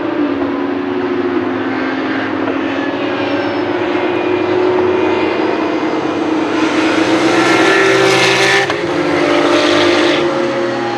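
Racing car engines running on the circuit, a steady drone that swells as cars come closer and pass between about six and ten seconds in, with an abrupt change just before nine seconds.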